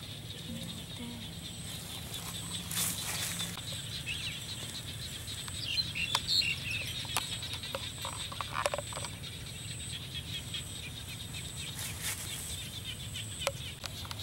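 Outdoor ambience of insects chirping steadily with a fast, even pulse, a few bird chirps about six seconds in, and scattered light clicks.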